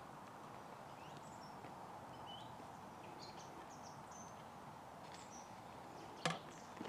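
Faint woodland birdsong, scattered short chirps over a quiet background hiss, with one sharp knock near the end.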